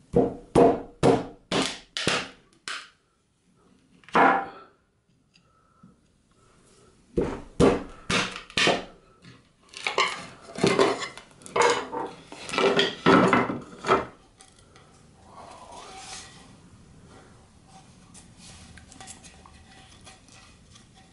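Sharp knocks of a metal tool striking a melamine-faced chipboard resin mould to break it off a cast resin-and-wood blank: a quick run of about six knocks, a single knock, then a longer run, followed by quieter handling as the mould pieces come apart.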